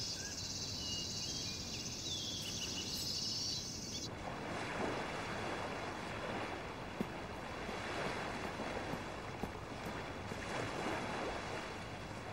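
Small waves washing onto a sandy beach: a steady rush of surf that starts abruptly about four seconds in. Before it, a quieter outdoor background with a high steady hiss and a few short chirps.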